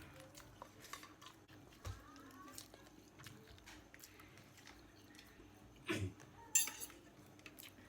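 Eating sounds: cutlery clinking and scraping against a dish, in scattered small clicks, with two sharper clinks about six seconds in.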